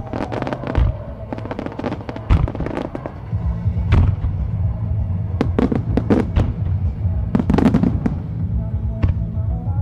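Starmine fireworks display: rapid volleys of launches and bursting shells, clusters of sharp bangs and crackles coming in waves. Music from loudspeakers plays underneath.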